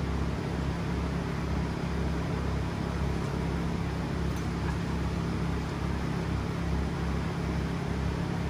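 Steady low hum of factory machinery running, with an even hiss over it.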